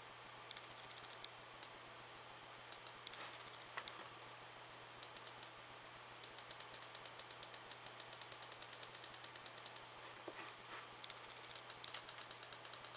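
Computer mouse scroll wheel clicking notch by notch as a web page is scrolled: a few single clicks, then quick runs of about four ticks a second. A faint low hum runs underneath.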